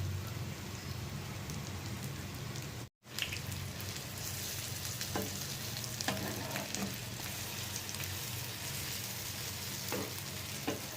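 Shami kababs shallow frying in oil: a steady sizzle, broken by a brief cut about three seconds in, with a few light clicks later.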